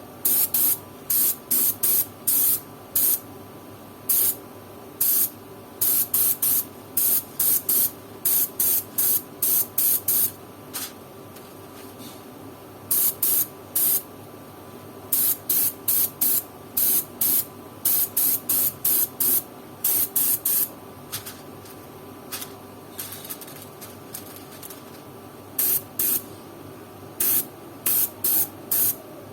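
HVLP spray gun (an H2000 with a 0.7 mm nozzle) spraying leather paint in quick short bursts of hiss, several a second, with two lulls of a few seconds. A steady low hum runs underneath.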